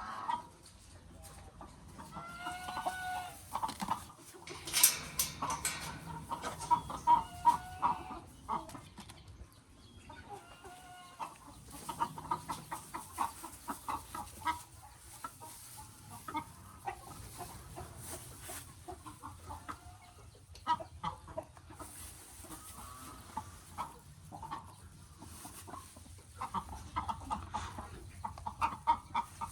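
Chickens clucking in quick runs of short notes, with a few longer, rising-and-falling calls among them. A brief sharp sound comes about five seconds in.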